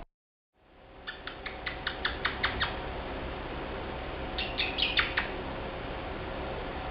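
Male cockatiel making two quick runs of short, sharp sounds, about five a second: nine or so, a pause, then five more.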